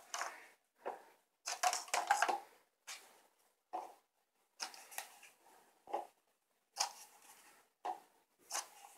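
Paper cups being picked up, set down and stacked one-handed on a wooden table: a series of light clattering knocks and scrapes, irregular, roughly one every half second to second.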